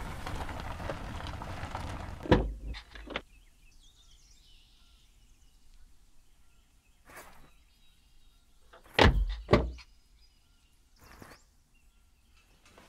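Renault Clio running as it pulls up. Its noise stops with a sharp thunk about two seconds in. After a quiet stretch come a few car-door thunks and knocks, the loudest a quick pair just past the middle.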